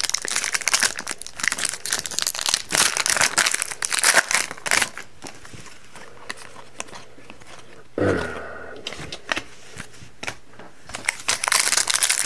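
Panini Prizm hockey card pack wrappers being torn open and crinkled by hand. The crackling comes thick for the first five seconds, eases off, and picks up again near the end.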